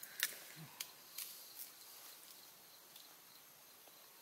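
A few light, sharp clicks and snaps, about four in the first two seconds, the first the loudest, from small food being picked apart by hand, over a faint outdoor background.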